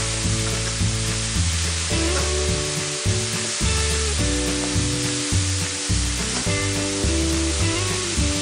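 Leeks and diced salmon sizzling in a frying pan, a steady even hiss, with background music playing.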